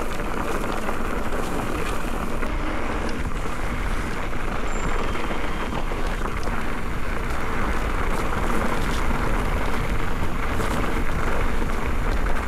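Steady rush of wind and tyre noise from an e-mountain bike running down a loose dirt trail, with scattered light clicks and rattles.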